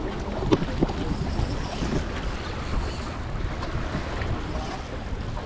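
Wind buffeting the microphone over the wash of sea waves, with a couple of short clicks about half a second in.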